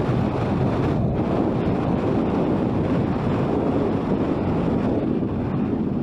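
Wind buffeting the microphone of a camera on a moving scooter: a steady low rushing, with the ride's road noise mixed in.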